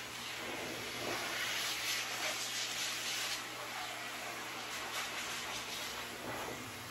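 High-velocity dog dryer blowing air through its hose nozzle onto a French Bulldog's wet coat: a steady rushing hiss that swells and eases as the nozzle moves over the dog.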